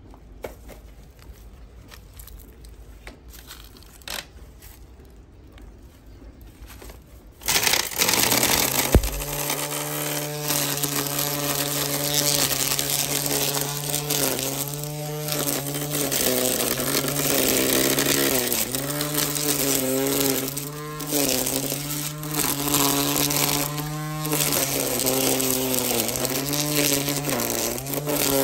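Ryobi 18V cordless string trimmer starting about a quarter of the way in, then running with a steady buzzing whine whose pitch sags and recovers again and again as the line cuts through weeds.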